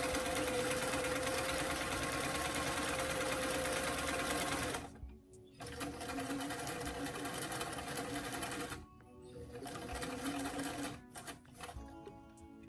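Vintage sewing machine running as it top-stitches a hem, in long steady runs with a humming tone. It stops briefly about five seconds in and again near nine seconds, then runs in short stop-start bursts near the end.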